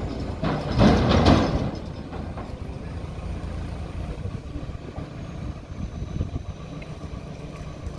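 JCB backhoe loader's diesel engine running steadily as it lowers a concrete culvert pipe into a tractor trailer. About half a second in, a loud rough noise lasting about a second rises over the engine.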